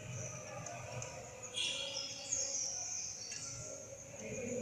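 Birds chirping in the background: a run of short, high chirps and quick falling notes, with a stronger burst of chirps about a second and a half in.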